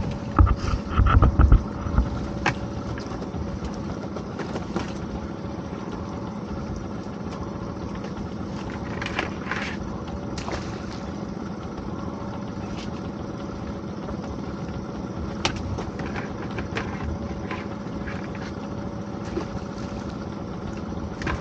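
A motor on a small fishing boat running steadily while lobster pots are hauled, with a cluster of heavy thumps about a second in and scattered knocks and clicks of pot gear after.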